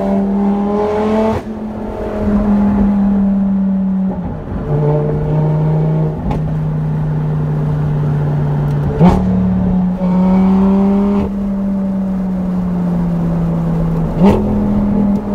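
Lamborghini Gallardo LP570 Superleggera's V10, on a straight-piped, decatted Larini exhaust, heard from inside the cabin while driving: a steady loud drone. The pitch drops about four seconds in and climbs back about nine seconds in with a sharp crack, and there is another crack near the end.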